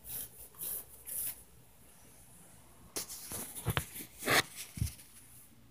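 Three short bursts of rustling, then after a pause a few dull thumps and one sharp knock.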